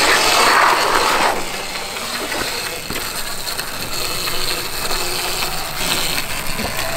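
72-volt Sur-Ron electric dirt bike being ridden on pavement: a noisy rush of motor, chain and tyre sound, loudest in the first second or so, then a steadier run with a faint high electric motor whine.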